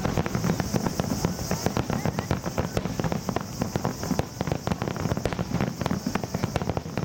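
A dense barrage of aerial fireworks shells bursting in quick succession: a continuous run of sharp bangs and crackles, many each second, with no pause.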